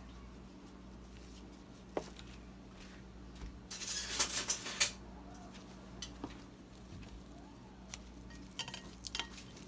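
Kitchen utensils and dishes being handled: a single click, a brief burst of scraping and rattling about four seconds in, then scattered light clinks.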